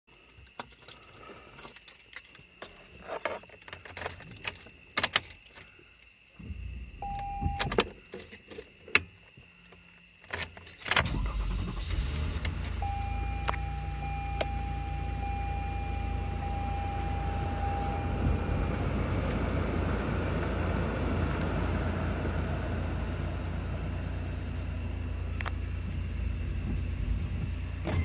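Keys jangling, with clicks and knocks inside a car's cabin; about eleven seconds in, the car's engine starts and settles into a steady low idle. A thin steady tone sounds for a few seconds just after the start.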